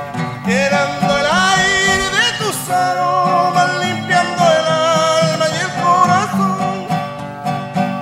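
Two acoustic guitars strumming and picking a folk song, with a melody line sliding up and down over the chords, recorded from a distance on a camcorder's built-in microphone.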